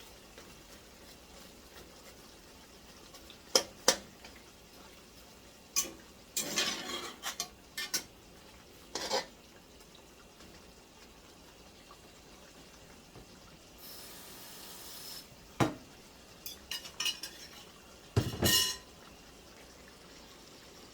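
Kitchen utensils and dishes clinking and clattering in scattered short knocks while food is being prepared, with a brief hiss a little past the middle.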